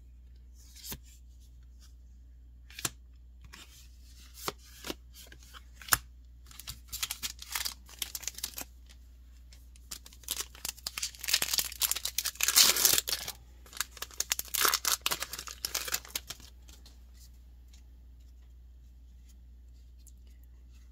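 A foil booster-pack wrapper being crinkled and torn open by hand, after a few light taps and clicks. The tearing and crinkling come in two bouts, loudest near the middle, then stop.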